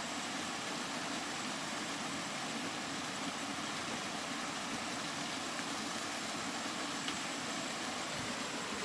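Steady rainfall, an even hiss with no changes.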